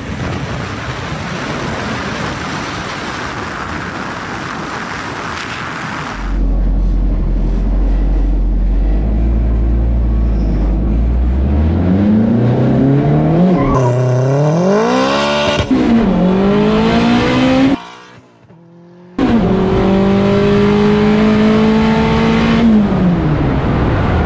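Rushing wind and road noise from a following car for the first six seconds. Then, heard inside the cabin, a turbocharged Honda K24 engine pulls hard under full acceleration, its pitch climbing and dropping back at two gear shifts. After a brief break it holds steady high revs and winds down near the end.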